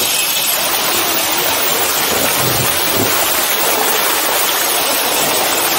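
Steady rush of falling, splashing water, an even hiss strongest in the upper pitches.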